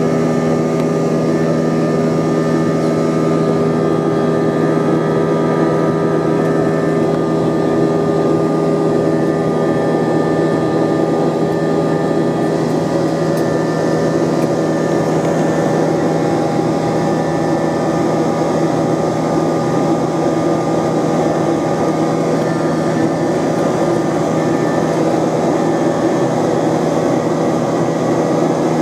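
Steady cabin noise of an Airbus A321 climbing after takeoff: the drone of its IAE V2500 turbofans at climb thrust, with several steady hum tones over the rush of airflow. A few of the higher hum tones fade about halfway through.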